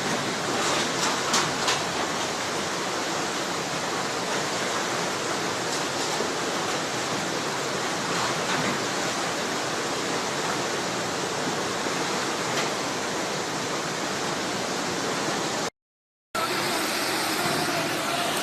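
Floodwater rushing: a steady, dense rush of fast-moving water, with a few short louder splashes or knocks in the first two seconds and a brief cut to silence about sixteen seconds in before the rush resumes.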